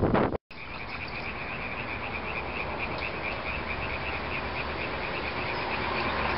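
Loud wind noise cuts off abruptly, and after a short gap a steady high-pitched trill sets in, pulsing several times a second over a faint hiss: an evening chorus of a calling animal.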